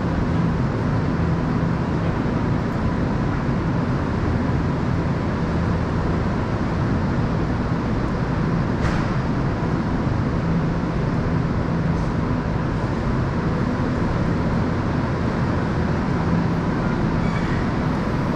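Tokyu Tamagawa Line electric train standing at the platform with its doors open, its onboard equipment giving a steady low hum with a faint steady whine above it. A single short click about nine seconds in.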